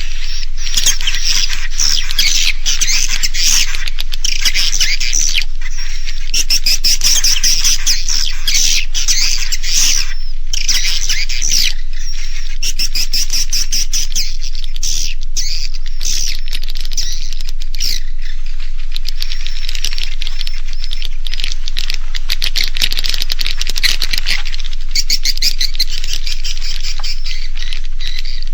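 Recorded edible-nest swiftlets twittering and chirping in a dense, continuous chatter. This is a roosting lure call, played in swiftlet houses to make the birds stay the night.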